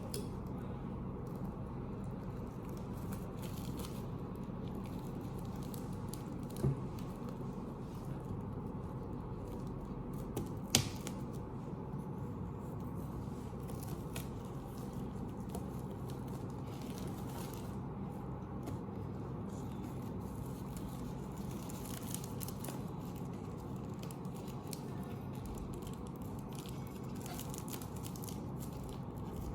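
Parcel wrapping being opened: faint crinkling and tearing of packing material over a steady low hum, with two sharp knocks a few seconds apart about a third of the way in.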